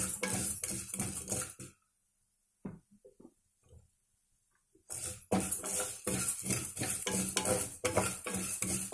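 A spatula stirring dry-roasted lentils and fenugreek seeds in a kadai: quick scraping, rattling strokes for about two seconds, a pause with a few faint clicks, then steady stirring again from about five seconds in.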